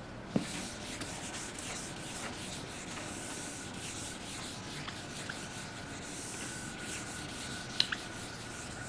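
Rubbing and scratching strokes on a writing surface, with a sharp click shortly after the start and another near the end, over a faint steady whine.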